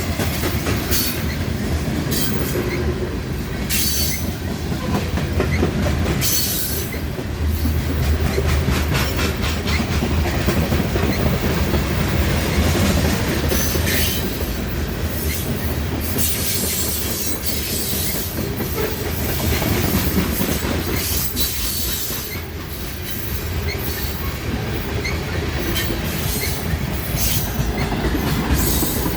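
Slow freight train's cars rolling past at close range: a steady rumble with the wheels clicking over rail joints and stretches of high-pitched wheel squeal.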